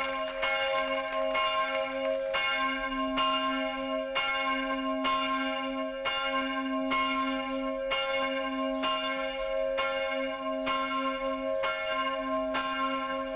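Church bells swinging in full peal (à la volée), striking regularly a little under once a second over a steady ringing hum.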